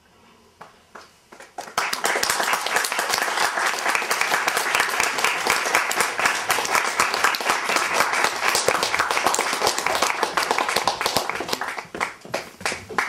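Audience applause: a few scattered claps, then, about two seconds in, a full round of clapping that thins out into separate claps near the end.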